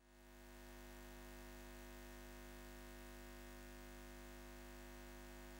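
Faint, steady electrical hum made of several held low tones, fading in at the start and fading out near the end.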